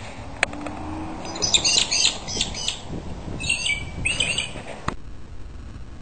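Birds giving rapid, high chirping calls in three bursts, the first starting about a second and a half in, during a fight between two birds over a mate.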